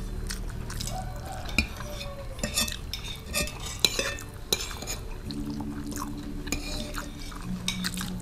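Metal spoons clinking and scraping against plates and bowls as several people eat, in short irregular clicks.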